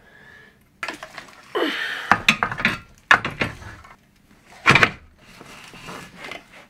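Evolution Rage 3DB mitre saw's turntable being turned and handled: a sliding scrape and several sharp knocks, the loudest about two thirds of the way through.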